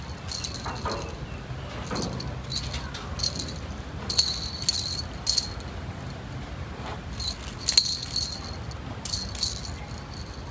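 Small jingle bells on a cat's string toy jingling in short, irregular bursts as a cat bats and bites at it.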